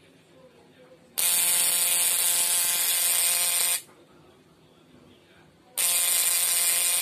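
Homemade battery-powered fish shocker buzzing loudly and steadily as it is switched on twice: a burst of about two and a half seconds starting about a second in, then a second burst starting near the end.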